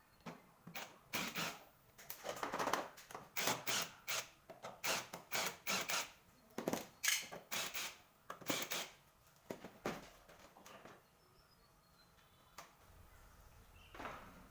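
A rapid, irregular run of clicks, taps and scrapes, as of hands and tools working on hard plastic and metal parts. They thin out after about ten seconds.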